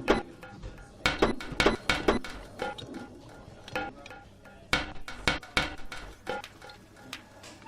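A series of irregular sharp knocks and clinks of hard objects being handled, some with a brief ring, clustered about a second in and again near the middle.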